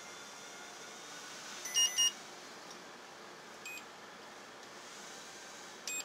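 Tajima embroidery machine control panel beeping as its keys are pressed: a quick double beep about two seconds in, a fainter single beep, and another beep near the end, over a steady room hiss.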